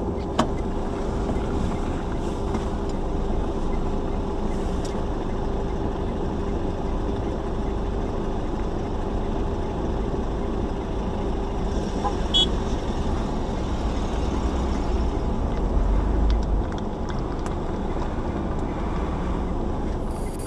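Steady car engine and road noise heard from inside a moving car, with a low steady hum through most of it. A brief low rumble swells up near the end.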